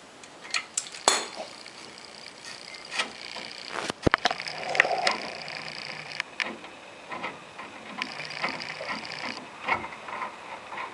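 Hand tools and loose bolts handled on metal during brake caliper removal, making scattered clicks and clinks, with one sharp knock about four seconds in.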